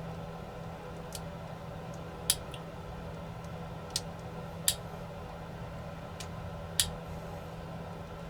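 Small hand tools clicking and tapping against the parts of a drone being taken apart, five or so sharp ticks a second or two apart, over a steady low hum.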